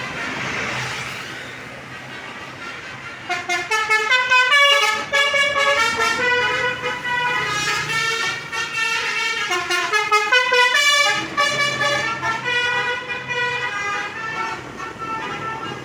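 Telolet multi-tone bus horn playing a quick melodic tune, its notes stepping up and down in pitch, starting about three seconds in over the noise of the bus engine.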